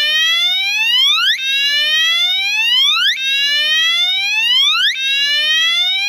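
Gentex Commander electronic fire alarm horn sounding its slow whoop tone: a loud rising sweep that starts over about every two seconds, with a faint steady hum underneath.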